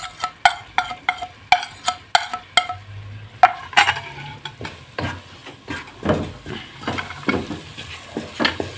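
A wooden spatula taps repeatedly against a small dish, about three taps a second, to knock off the ground spices. It then scrapes and stirs the spices through frying onion and ginger-garlic paste in a non-stick pot, with a low sizzle.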